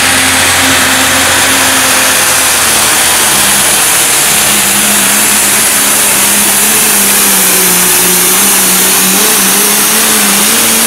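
Pro stock pulling tractor's turbocharged diesel engine running at full throttle while dragging a weight sled. Its pitch drops a little about two and a half seconds in, then holds there, wavering slightly.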